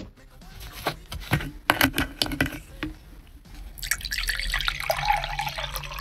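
Several sharp knocks and clicks, then water running in a steady hiss from about four seconds in.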